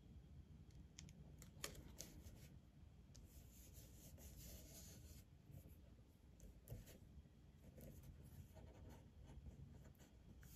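Near silence, with faint rubbing and a few soft ticks as hands press and smooth a clear sticker and planner pages flat.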